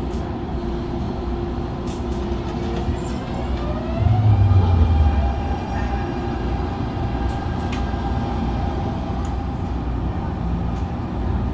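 CAF-built MTR Tung Chung line electric train running, with the whine of its traction drive rising in pitch as it speeds up during the first half, then holding a steady tone over the running rumble. A short, louder low rumble comes about four seconds in.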